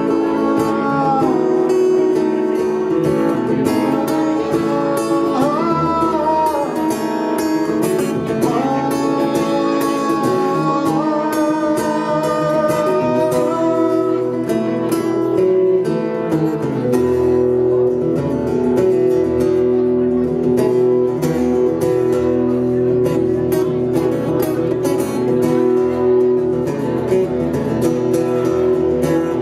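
A man singing with a strummed steel-string acoustic guitar. About halfway through the voice drops out and the guitar carries on alone with steady strummed chords.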